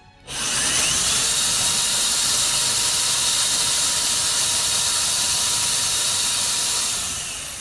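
Corded electric drill spinning up and running steadily while it drives the whiteboard eraser's carriage mechanism. The drill stands in for the underpowered drive motor. The sound starts with a brief rise in pitch and begins to wind down and fade near the end.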